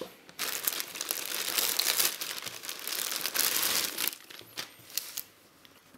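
Thin clear plastic bag crinkling and rustling as it is handled and opened and a folded cotton T-shirt is pulled out of it. The crinkling stops about four seconds in, with a few faint rustles after.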